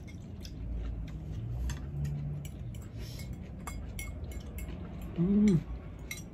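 Metal fork, spoon and chopsticks clicking and scraping against small ceramic bowls and plates while eating. A short hummed "mm", rising then falling, about five seconds in is the loudest sound.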